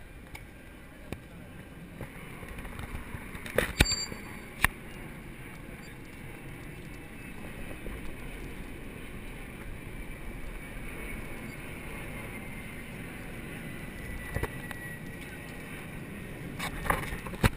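Riding noise picked up by a bicycle-mounted action camera: steady wind rush and tyre noise as the bike rolls over a steel-grid bridge deck, with a few sharp knocks about four seconds in and again near the end.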